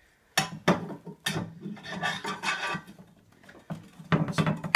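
Metal scooter parts scraping and clicking as a headset crown race is worked down onto the fork.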